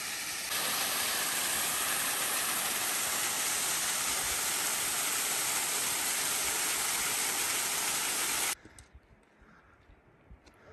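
Steady rush of flowing water, such as a waterfall or fast stream, that cuts off abruptly near the end, leaving only faint ticks.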